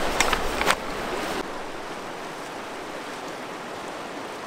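A couple of sharp clicks and clatters from a folding camp chair's metal frame, then, about a second and a half in, the steady rushing of a fast-flowing creek.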